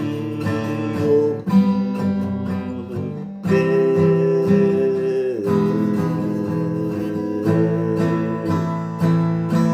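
Acoustic guitar music with strummed chords; the chord changes about three and a half seconds in.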